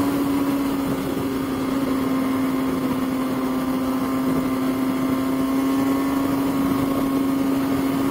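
A motorcycle engine holding a steady high rpm while cruising at highway speed, over a rush of wind and road noise.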